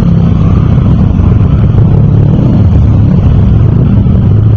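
Scooter engines running loud at close range as scooters ride past, a steady heavy engine note throughout.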